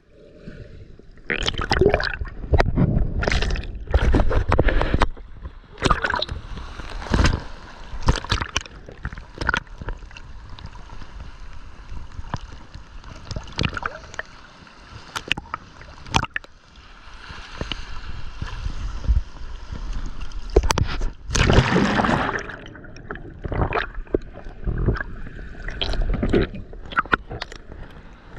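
Sea water sloshing and gurgling around a snorkeler's camera at the surface, with irregular splashes, a calmer stretch in the middle and a strong surge of water a little past twenty seconds.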